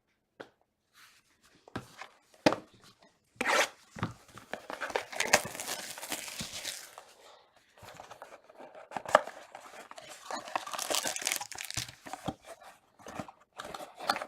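Wrapping on a box or pack of trading cards being torn open and crinkled, in two stretches of rustling with sharp clicks and snaps.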